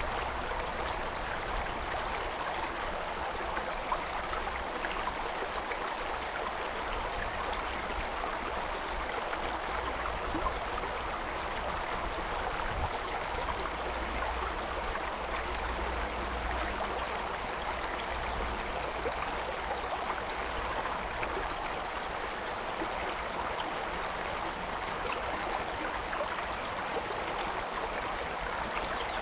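Stream water flowing steadily: a constant rush of running water with small splashes through it.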